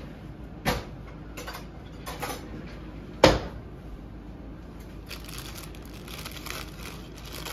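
Two sharp knocks, the louder about three seconds in, with a few lighter taps, then a plastic bag crinkling as it is handled and cut open with scissors.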